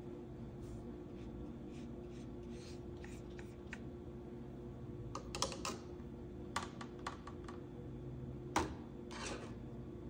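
Small clicks, taps and short scratchy strokes from drawing and painting tools handled on a tabletop, over a steady low hum. The loudest is a sharp click about eight and a half seconds in.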